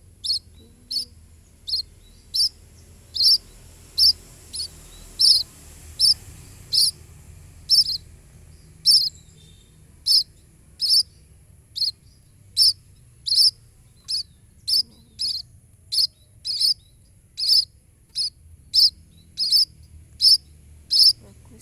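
A young munia chick chirping: short, high cheeps repeated evenly a little more than once a second.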